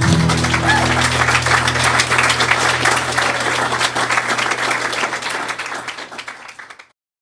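Audience applauding over the last ringing chord of an acoustic guitar, the clapping fading away until the recording cuts off about seven seconds in.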